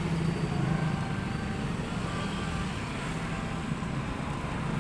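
Steady low rumble of background noise with no distinct events.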